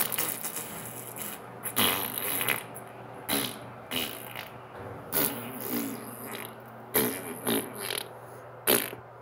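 A string of about ten short fart noises, roughly one a second, some wavering in pitch.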